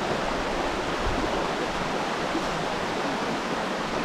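River water flowing steadily, an even rushing wash of sound.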